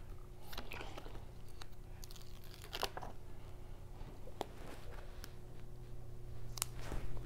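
Scattered soft clicks, crinkles and rustles from adhesive ECG electrode pads being handled and pressed onto a dog's side, over a steady low hum.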